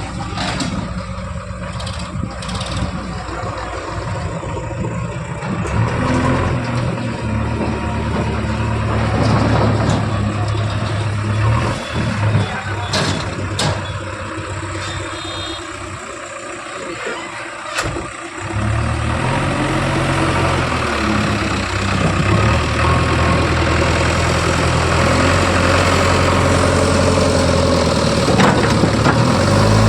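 Diesel engines of a backhoe loader and tractors running at a work site, the engine note rising and falling as they take load, with a few sharp knocks.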